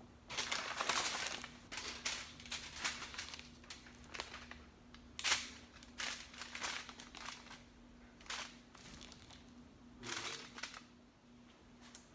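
Irregular crinkling and rustling handling noises, with a few sharp clicks, the loudest about five seconds in, over a faint steady hum.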